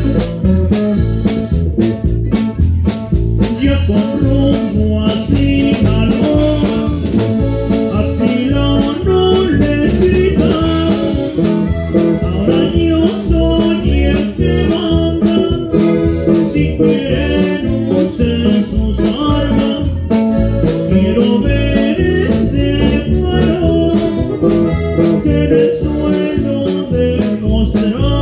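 Live norteño band playing an instrumental passage: accordion carrying the melody over bajo sexto, bass and drum kit, with a steady beat.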